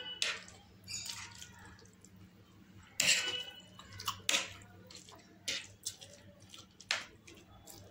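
Close-miked wet eating sounds: chewing and slurping saucy instant noodles, with a spoon scraping and clinking on a ceramic plate. Irregular sharp clicks and smacks; the loudest comes about three seconds in.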